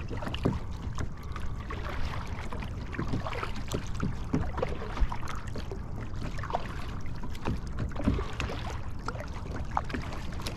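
Water splashing and lapping around a Field & Stream Eagle Talon 12 sit-on-top kayak: many small, irregular splashes and drips over a steady low rumble.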